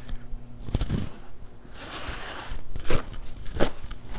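A few light knocks and clicks with a short rustle in between, handling noise in a workshop, over a faint steady low hum.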